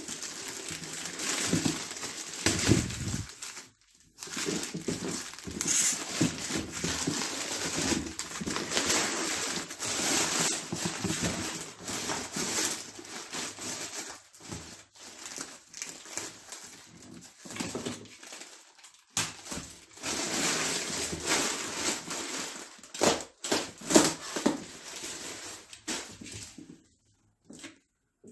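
Thin black plastic shipping bag crinkling and rustling as it is torn and pulled off a cardboard box, with the box being handled, dying away near the end.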